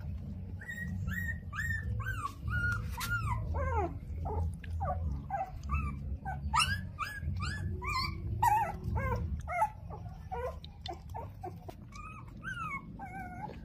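Hungry young puppies whimpering and yelping at a milk bottle, a rapid string of short high cries that each fall in pitch, thinning out toward the end.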